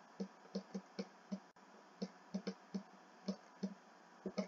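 Stylus tip tapping and clicking on a writing surface as digits are handwritten: a string of short, quiet, irregular clicks, a few per second.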